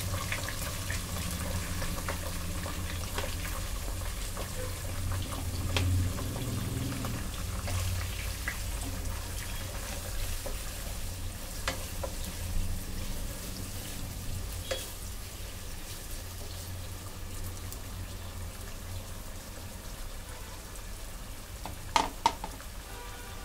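Sliced onions and green chillies frying in hot oil, a steady sizzle, with a few short knocks of the stirring spoon against the pot.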